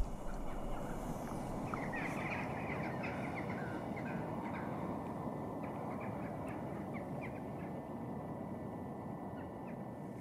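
A flock of birds calling in many short, quick chattering notes from about two seconds in until near the end, over a steady low rush of background noise.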